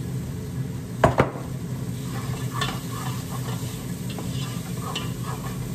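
Onions and garlic sizzling in olive oil in a nonstick pot, stirred with a wooden spoon in short scraping strokes from about two seconds in. Two sharp knocks come about a second in, over a steady low hum.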